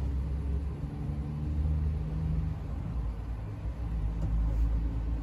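Steady low rumble of road traffic with an engine hum under it.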